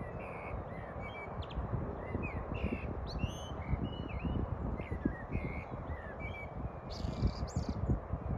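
Small birds chirping in a string of short, quick calls, busiest near the end, over steady low background noise.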